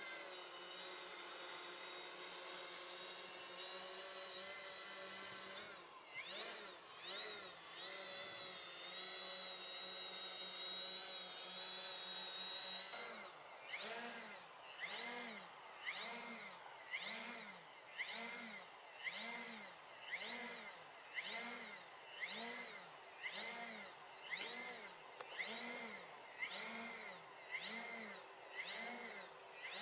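Multirotor drone's electric motors and propellers whining in a hover, steady at first. About halfway through, the pitch and loudness start rising and falling about once a second as the motors surge and ease. These are fast altitude oscillations from too high an altitude speed I gain in the AutoQuad flight controller.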